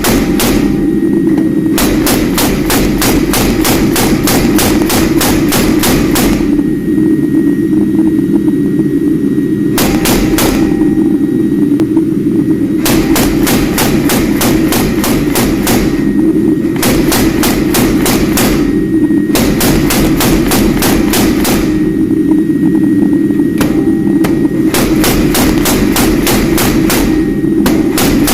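Hammer blows on steel at an anvil, forging knife stock: runs of evenly spaced strikes at about three a second, broken by short pauses, over a steady low hum.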